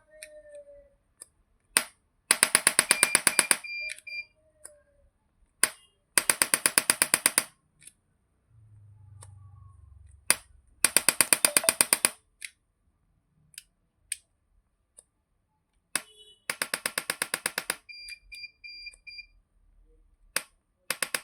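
Biotronix 350 N electric chiropractic adjusting gun firing its impulse head in rapid bursts of clicks, about nine a second, each burst lasting about a second and a half, four times with a fifth starting at the end. Short high beeps follow some bursts, with single clicks in between.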